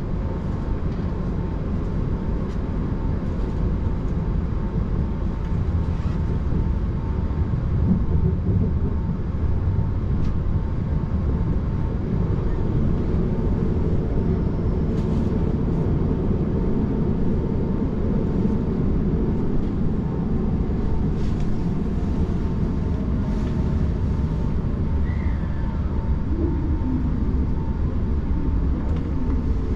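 Running noise of a JR Hokkaido Kamui limited express electric train heard inside the car: a steady rumble with a faint constant whine and a few light clicks, as the train runs in to its terminal stop.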